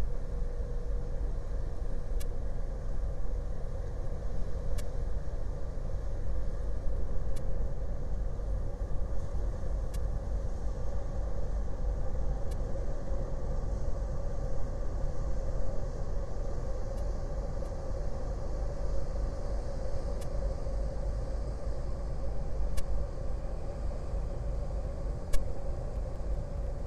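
Steady low rumble with a faint steady hum above it, and light clicks about every two and a half seconds.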